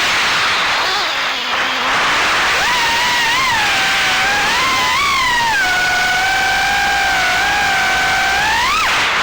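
Small 3-inch FPV quadcopter's four brushless motors (GEPRC 1206 4500KV) and propellers whining, the pitch rising and falling with the throttle. The first couple of seconds are mostly a rushing noise. The pitch then holds steady for about three seconds before a quick rise near the end.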